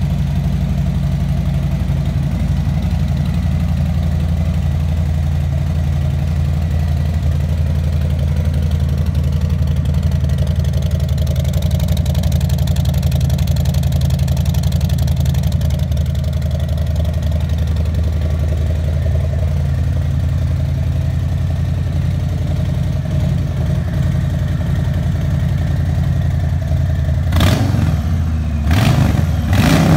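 Harley-Davidson Low Rider's Milwaukee-Eight 107 V-twin idling steadily through its customised stock exhaust pipes. Near the end the throttle is blipped for a few short revs.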